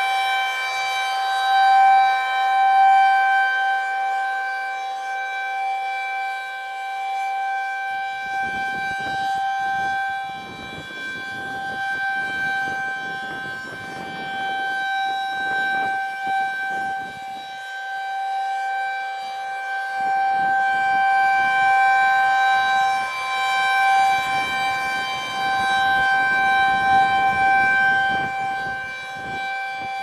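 Federal Signal 2001-SRNB rotating electromechanical siren sounding a steady single-tone alert, its loudness swelling and fading as the horn turns. From about eight seconds in, wind gusts rumble on the microphone.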